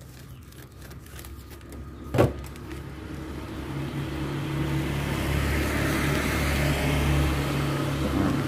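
A motor vehicle's engine running close by, growing louder over several seconds and then holding steady. A single sharp knock comes about two seconds in.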